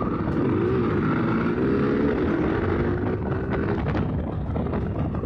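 Motorcycle engine running as the bike is ridden, its revs rising and falling, with wind noise on the microphone.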